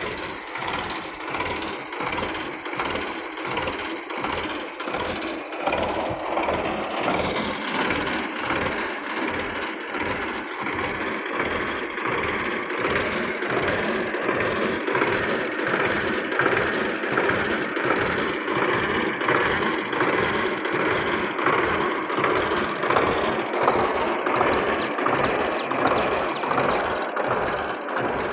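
1978 Belarus tractor's four-cylinder diesel engine running steadily, with an even low throb repeating about three times a second.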